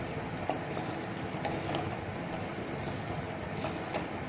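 Steady hiss of vegetables frying in a metal kadai, with a wooden spatula stirring through them and a few light clicks as it knocks the pan.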